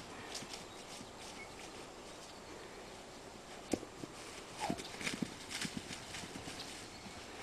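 Shire horse hooves thudding and knocking on the ground in a few scattered, uneven strikes, the sharpest about halfway through and a quick run of them just after.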